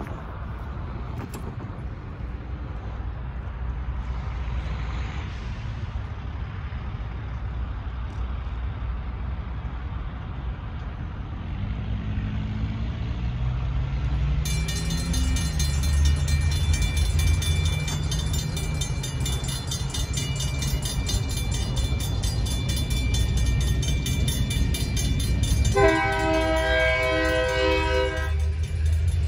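Railroad crossing bell starts ringing rapidly about halfway through and keeps going. Near the end a locomotive horn sounds for about two and a half seconds. Earlier, over a low traffic rumble, a semi truck's engine rises in pitch as it pulls across.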